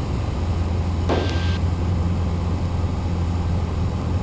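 Steady drone of a light single-engine airplane's piston engine and propeller, heard inside the cabin. A brief hiss with a thin steady tone comes about a second in.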